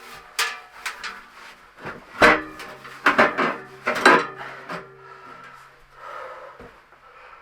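A series of knocks and scrapes from wooden things being handled and set down, about half a dozen, the loudest about two seconds in and again about four seconds in.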